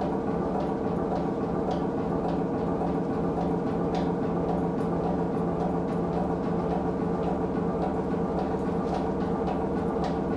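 A steady droning soundscape of many held low pitches that do not change, with a few faint clicks on top.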